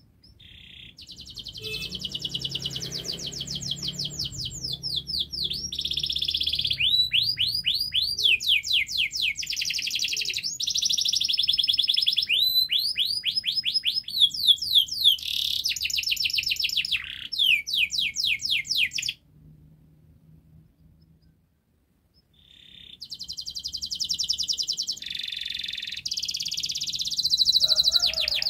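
Yellow domestic canary singing long, continuous song phrases of rapid repeated trills, pausing for about four seconds past the middle before starting again.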